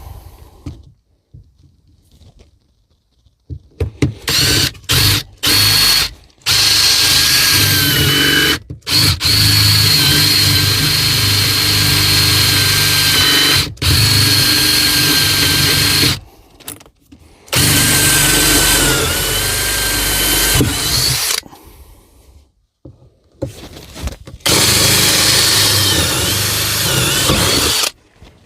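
Power drill boring starter holes through a melamine-faced worktop, running in a few short blips and then several bursts of a few seconds each with brief pauses between, its whine dipping in pitch now and then as the bit bites.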